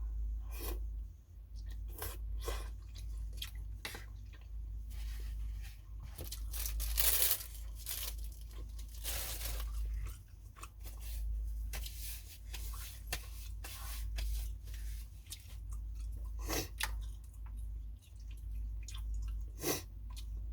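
Someone eating a bowl of pho close to the microphone: chewing, with scattered clicks of utensils and a couple of longer noisy stretches near the middle, over a steady low hum.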